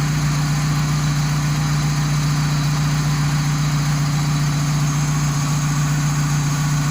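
Car engine idling steadily with the AC compressor engaged, running smoothly without its earlier growl now that the compressor oil has been changed.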